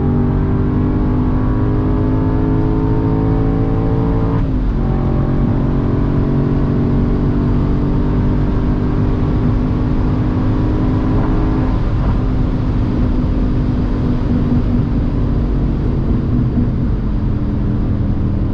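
Audi B6 S4's 4.2-litre V8 accelerating on the highway, heard from inside the cabin. The engine note climbs, drops sharply on an upshift about four and a half seconds in, then climbs again, changes briefly around twelve seconds, and holds steady over tyre and road noise.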